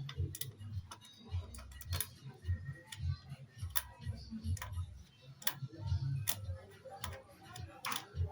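Irregular sharp clicks and taps of a small screwdriver and metal parts as screws are taken out of a laptop motherboard to reach the CPU, over low handling bumps.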